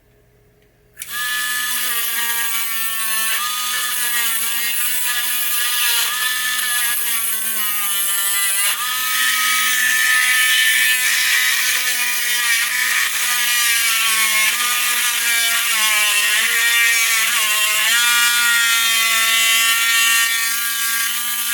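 Dremel rotary tool switched on about a second in and running with a steady whine, its pitch wavering and dipping as it is worked against a pinball leaf-switch contact to find a loose contact that spins.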